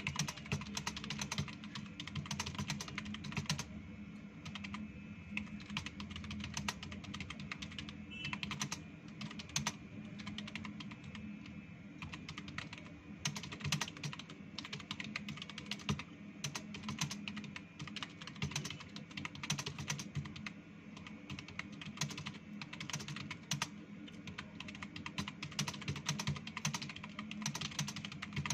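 Fast, continuous typing on a computer keyboard: a dense, unbroken stream of key clicks during a timed speed test.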